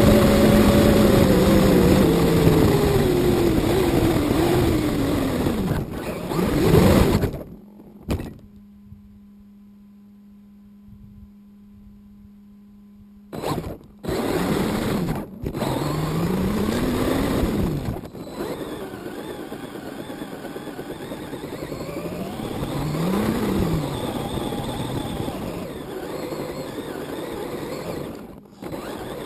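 1:10 scale RC car's motor and drivetrain, heard from a camera on the car, whining in pitch that falls as it slows. It goes quiet for several seconds a quarter of the way in, then rises and falls again as the car speeds up and slows over grass.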